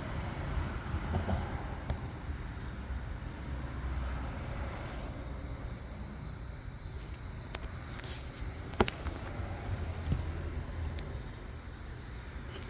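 Insects chirring steadily at a high pitch, with a low rumble and a few sharp clicks about two-thirds of the way through.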